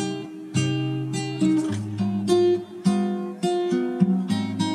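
Background music: chords struck in sharp, ringing onsets about twice a second, in a changing pattern.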